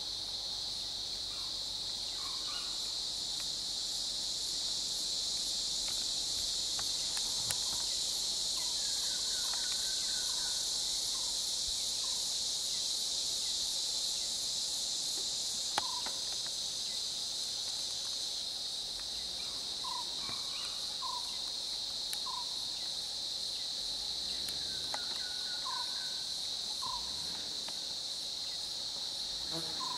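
Steady high-pitched drone of insects, with short bird chirps now and then and a single sharp click about halfway through.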